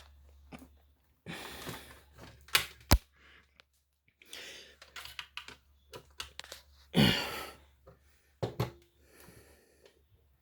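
Handling noises from toy cars and a toy garage being moved about: scattered clicks, knocks and bursts of rustling, with one sharp click about three seconds in.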